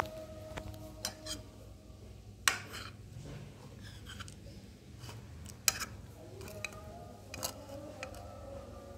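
Metal spoon clinking and scraping against a ceramic bowl: a handful of sharp, ringing clinks at irregular intervals, the loudest about two and a half seconds in and again near the middle.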